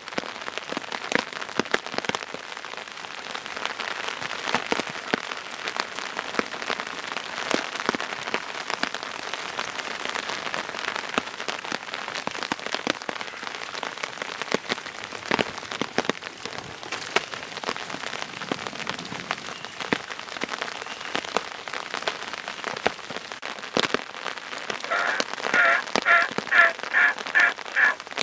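Steady rain falling, an even hiss dotted with many separate drop taps. Near the end a bird calls a quick series of about eight short notes.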